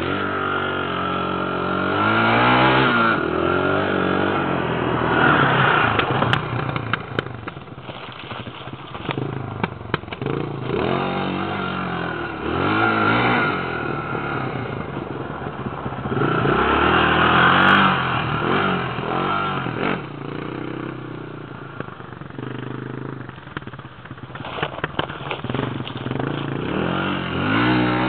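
Sport quad (ATV) engine revving hard and dropping back again and again as it is ridden around in the dirt, growing louder at times and then fading.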